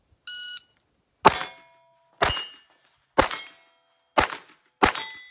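Shot timer's electronic start beep, then five .22 rimfire pistol shots about a second apart, each followed by the brief ring of a hit steel plate.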